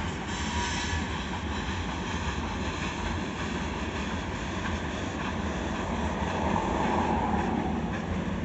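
Freight train cars of tank cars and boxcars rolling past, a steady wheel-on-rail noise that swells a little near the end, heard from inside a parked car.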